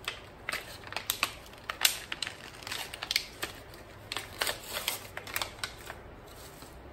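Hands handling small stationery items: a run of irregular sharp clicks and crackles that stops about six seconds in.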